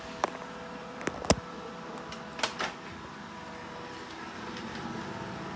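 Robot vacuum cleaner running with a steady motor hum, with a few sharp knocks and clicks in the first three seconds.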